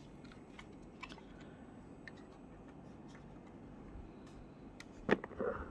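Handling noise from a 1/18 scale diecast model car being handled by hand: faint scattered small clicks, then a louder brief clatter of knocks and rustling near the end.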